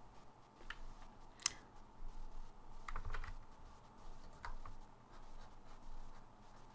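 A handful of faint, scattered computer keyboard keystrokes and clicks, a few seconds apart, over low room noise.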